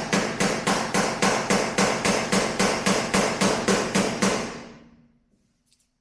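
Body hammer striking a dented steel body panel of a 1961 Willys in a fast, even run of blows, about four to five a second, each with a short metallic ring, while the dent and creases are worked out. The hammering stops about four seconds in and the ring dies away.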